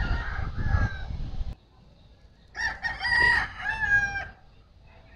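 A rooster crows once, a drawn-out crow of under two seconds that starts about two and a half seconds in. Before it, a low rumble on the microphone cuts off abruptly about a second and a half in.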